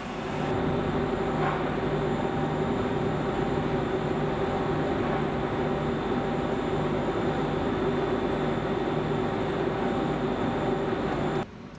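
Steady mechanical hum of a car ferry's machinery heard from on deck. Several fixed tones sit over a low, evenly pulsing throb. It swells in about half a second in and cuts off suddenly near the end.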